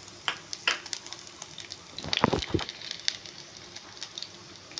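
Garlic cloves and chopped onion frying in hot oil in a pan, with scattered pops and crackles of spattering oil. A short, louder knock comes about two seconds in.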